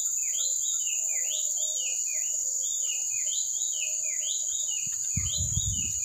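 White-chested babbler repeating short whistled notes, each rising sharply and then sliding down, about three a second without a break. A steady high insect drone runs underneath, and a low rumble of handling noise comes in near the end.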